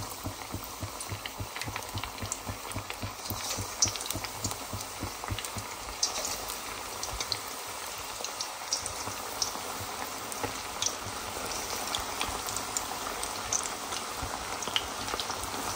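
Battered chicken pieces deep-frying in very hot oil: a steady, even sizzle with scattered sharp pops and crackles.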